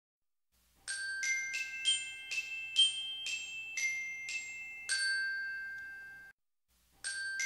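Intro jingle of bright, bell-like struck mallet notes, about ten in quick succession. The last note rings out and cuts off suddenly, and the jingle starts again near the end.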